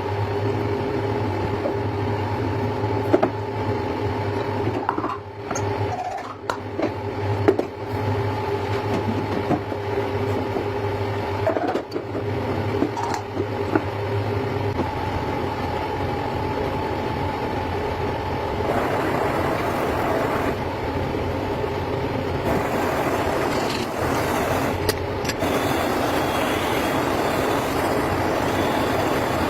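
A machine running steadily with a hum at a few fixed pitches and scattered clicks and knocks; about halfway through the hum gives way to a noisier, even whir.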